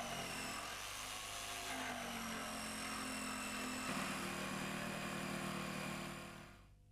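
Electric jigsaw running as its blade cuts through a kitchen worktop, the motor's pitch dipping and recovering under load. The sound fades out near the end.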